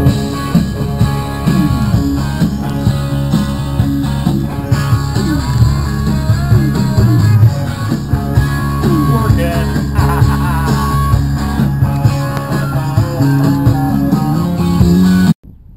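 Loud blues-rock music with guitar and gliding notes, playing over the boat's cabin stereo, cutting off abruptly near the end.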